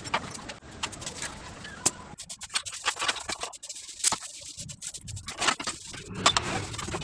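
Hand tools working on metal: quick clicks, rattles and scrapes of a spanner loosening bolts on a motorcycle engine, to take off the kick-start lever, silencer and right-hand engine cover.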